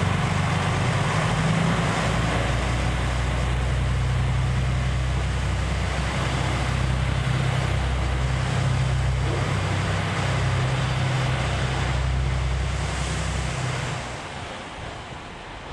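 JR Shikoku 2000 series diesel railcar's engines running with a steady low drone, then falling away near the end as the train moves off.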